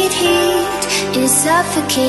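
Background pop song playing: a melody line with gliding notes over a continuous backing.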